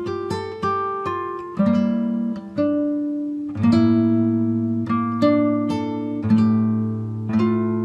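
Background music on acoustic guitar: plucked chords struck about once a second, each ringing out and fading before the next.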